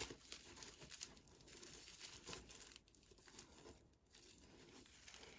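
Faint, irregular crinkling and rustling of Panama raffia yarn as it is pulled through stitches with a crochet hook.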